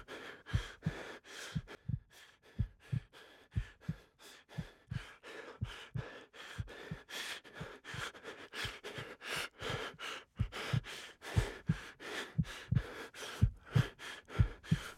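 A rapid heartbeat sound effect, low thuds a few times a second, over heavy panting breaths of an exhausted runner.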